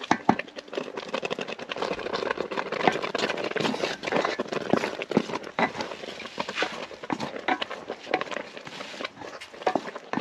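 Wooden spoon stirring chopped greens in a pot of boiling water, knocking and scraping again and again against the metal pot.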